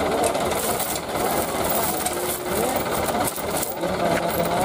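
An engine running at a steady idle, with people talking briefly over it.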